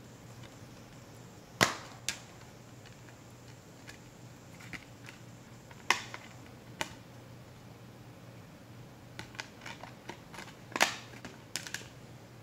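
Clear plastic Blu-ray keep case being opened and handled: sharp plastic snaps and clicks as the case is opened and the hinged disc tray is flipped. The three loudest snaps come about a second and a half in, near the middle and near the end, with lighter clicks and taps between them.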